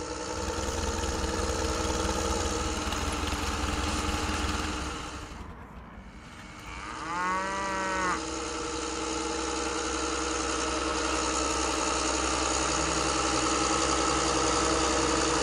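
Steady engine drone of a toy vehicle running, dipping briefly about five seconds in, with one short rising-and-falling, moo-like call about seven seconds in.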